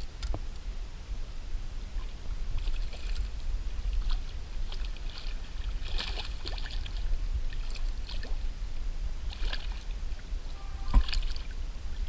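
A small hooked fish splashing and thrashing at the surface in short irregular bursts as it is reeled in beside the boat, over a steady low rumble.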